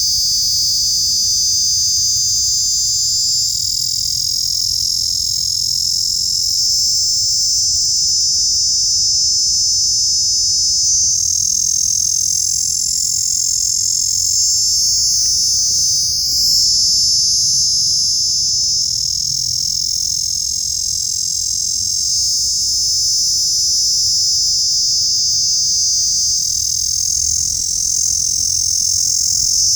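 A small insect calling with a loud, continuous, high-pitched buzz that holds steady without a break.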